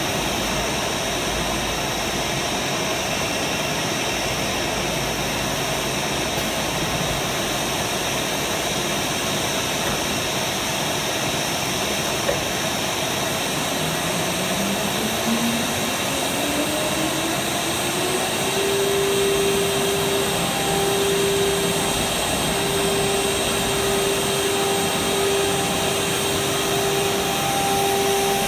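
CNC router running with a steady rushing machine noise; about halfway through, its spindle spins up, a whine rising in pitch over about five seconds and then holding steady at speed.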